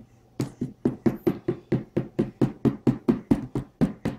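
A rapid, even series of sharp taps, about six a second, starting about half a second in and running on without a break.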